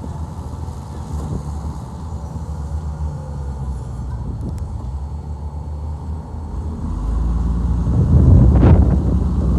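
Diesel engine of heavy earthmoving machinery running steadily, growing louder about seven seconds in as it takes on load, with a rougher, louder stretch near the end.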